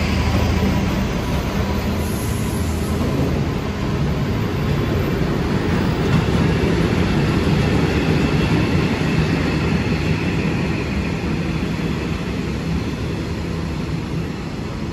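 Train passing close by: an engine drone at first, then a long, steady rumble of wheels on the rails that starts to fade near the end.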